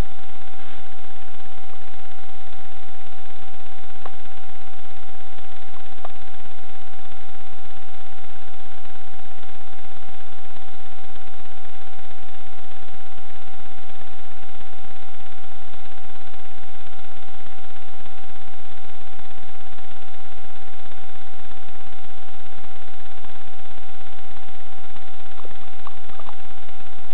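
Steady electronic hum and hiss from the camera's own recording circuitry: a constant whine that never changes, with a few faint clicks about four and six seconds in and again near the end.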